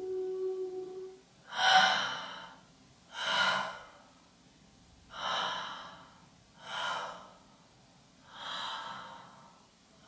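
A held vocal note ends about a second in, then a person gives five sharp, breathy gasps about a second and a half apart, each a little quieter than the last.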